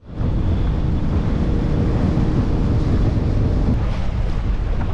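Wind buffeting the microphone as a Shallow Sport X3 skiff runs across open water, a steady low rumble of wind and boat noise.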